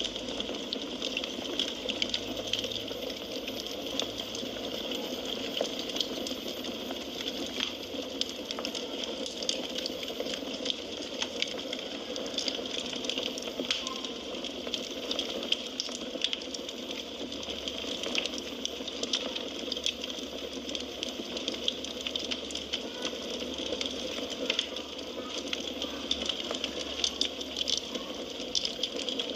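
Burning firewood crackling: a steady hiss of flames with frequent small, sharp pops and snaps scattered irregularly throughout.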